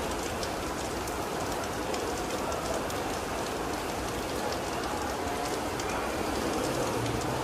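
Steady rain falling, with scattered ticks of individual drops striking nearby surfaces.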